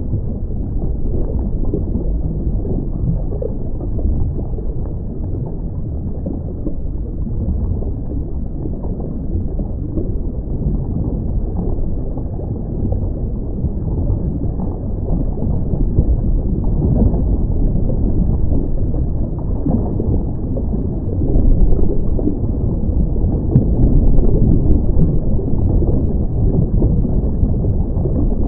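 Muffled underwater noise heard through a diving camera's housing: a steady low rumble with the gurgle of a scuba diver's exhaled bubbles, swelling louder a few times in the last third.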